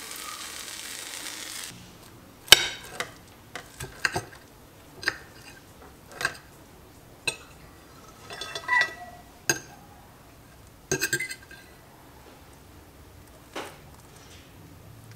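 Pan sizzle fading out in the first couple of seconds, then about a dozen irregular, sharp clinks of a metal fork against a ceramic plate as it cuts through a breaded patty.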